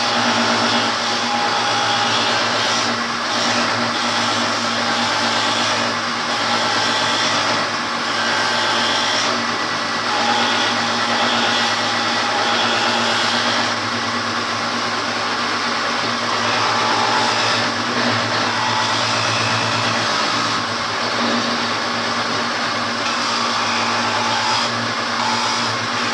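Stationary woodworking machine running steadily with a constant motor hum while a wooden board is fed across its table.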